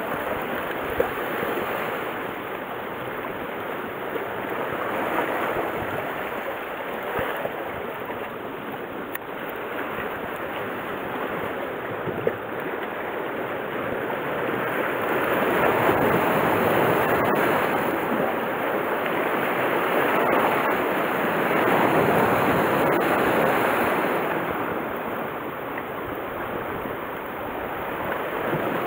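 Sea waves washing on a rocky boulder shore, a steady rush that swells louder and eases off over several seconds, with a few small clicks.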